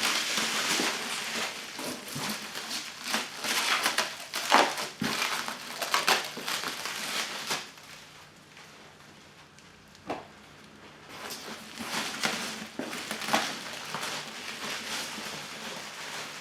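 Black plastic shrink wrap crinkling and crackling as it is cut and stripped off the box, in irregular bursts with a quieter stretch about halfway through.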